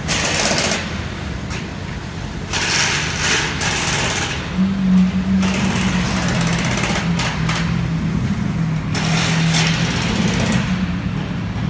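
Lamborghini Aventador Roadster's V12 running at low revs as it drives slowly by: a steady low engine note with louder, rough, rattling bursts every second or two.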